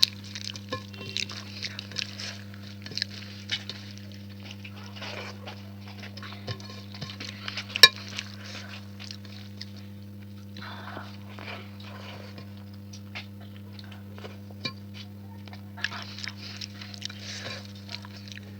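Close-up eating sounds: wet chewing and lip smacking with irregular sharp clicks, and one loud crack a little before the middle. A steady low hum runs underneath.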